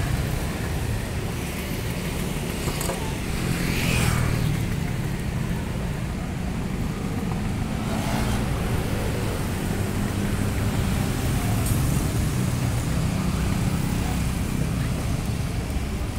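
Road traffic running steadily as a low rumble, with a few short hissing swells about three and four seconds in and again near eight seconds.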